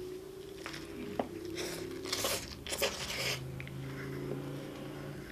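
Close-up biting and chewing of a Wendy's Baconator bacon cheeseburger, with a cluster of crunchy, noisy chews about two to three seconds in.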